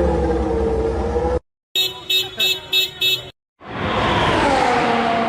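Racing car engine running, cut off abruptly, then five quick electronic beeps, then an engine sound that drops in pitch and settles to a steady note.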